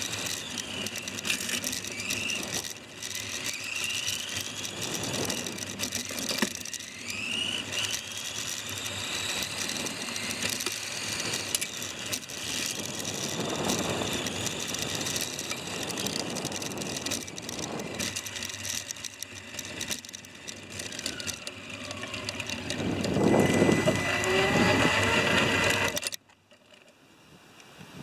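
Tamiya F101 radio-controlled F1 car's electric motor and gears whining, rising and falling in pitch as the car speeds up and slows, over tyre and road noise. It grows louder near the end, then cuts off abruptly.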